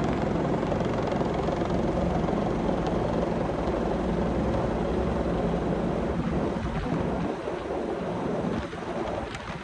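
Rescue helicopter's rotors and engine running steadily, with a regular low beat; the sound drops away about seven seconds in.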